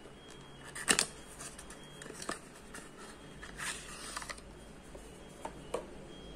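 Small cardboard carton being opened by hand and a plastic cream tube slid out of it: a sharp paper snap about a second in, a papery scrape and rustle around the middle, and a couple of light taps near the end.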